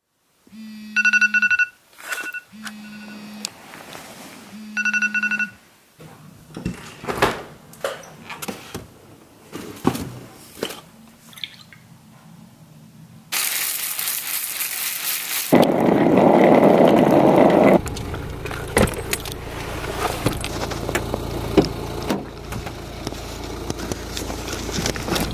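An electronic alarm beeps several times in the first few seconds, followed by clinks of a spoon and bowl and the pouring of a carton of soured milk. About halfway through comes a hiss and then a couple of seconds of loud rushing noise, after which a car's engine runs low and steady inside the cabin with light clicks and rattles.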